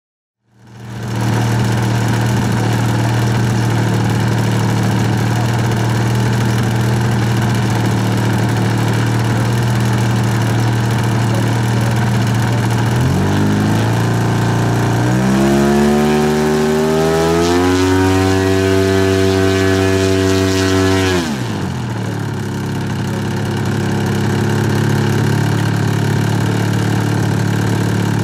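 Titan ZG 80B twin-cylinder two-stroke petrol engine of a large radio-controlled Piper Cub model, idling steadily. About 13 s in it is throttled up in steps to high revs, held there for about six seconds, then cut back sharply to idle.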